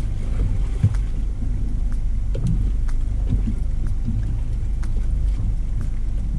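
Steady low rumble aboard a small boat on open sea, mostly wind on the microphone, with a few faint clicks.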